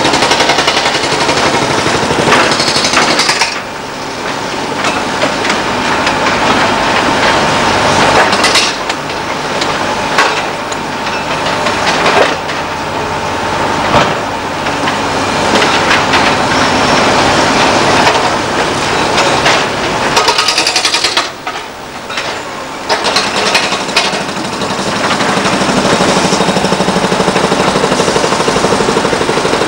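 Excavator-mounted hydraulic rock breaker hammering rapidly on rock, its blows merging into a continuous loud rattle that drops off briefly twice, with diesel engines running.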